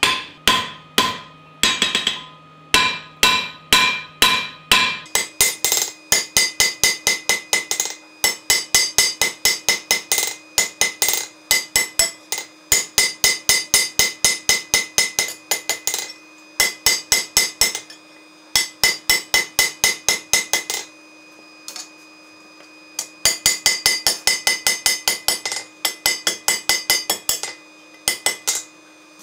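Blacksmith's hammer striking hot steel on an anvil, each blow ringing. The first few seconds hold slower blows, about two a second. From about five seconds in the sound is sped up to double speed, so the blows come about four a second and ring higher, in runs with short pauses between them.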